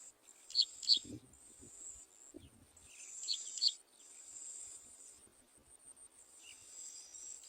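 Insects trilling steadily at a high pitch, with two quick pairs of sharp high chirps, one just after the start and one about three seconds in, and a few soft low thumps in the first half.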